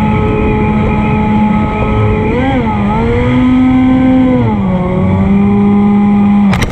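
A foam delta RC plane's propeller motor is running with a steady whine. Its pitch wavers and then rises and holds higher for a couple of seconds before settling back, as the throttle changes. Heavy wind rumbles on the microphone underneath, and near the end a sharp click cuts the sound off abruptly.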